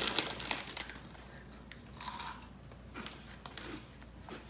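Crackling of a Cheetos chip bag as a hand reaches in, then crunchy Cheetos being bitten and chewed, with a few separate crisp crunches.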